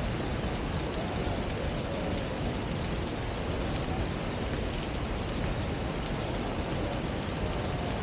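Waterfall and river water rushing steadily, an even, unbroken noise.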